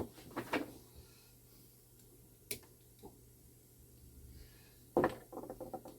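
Small metal clicks and taps of a hand tool working parts off a clock movement. A sharp click at the start, a lone click about two and a half seconds in, and a quick rattle of clicks near the end.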